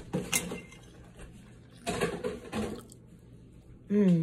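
Close-up eating sounds: wet chewing of fried rice and a metal fork clicking and scraping against a plate, with a short voiced 'mm' near the end.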